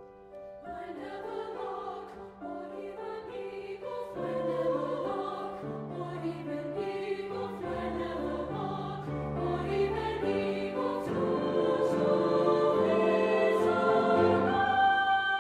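Treble choir of high voices singing with grand piano accompaniment. The voices come in about a second in over sustained piano notes, and low piano notes join a few seconds later. The music swells steadily louder and settles into a held chord near the end.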